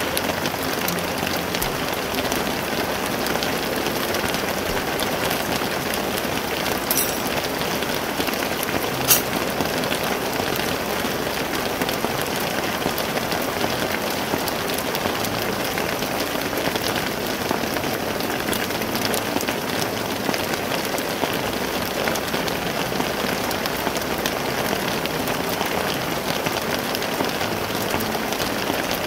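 Heavy rain falling steadily, with a single sharp click about nine seconds in.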